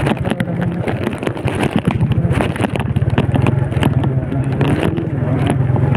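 Small motorcycle engine running steadily while riding over a rough road. Frequent sharp knocks and rattles come from the bumps.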